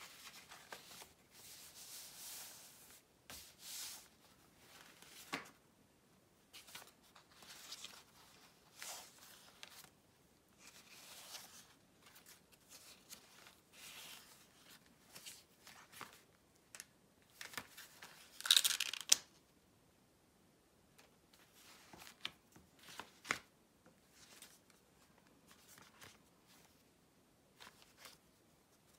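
Paper rustling and crinkling in short irregular bursts as envelopes and old book pages are handled and shuffled, with a louder rustle about two-thirds of the way through.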